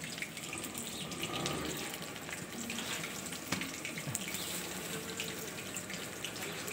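A steady rushing, hissing noise with scattered small clicks and a sharper click about three and a half seconds in.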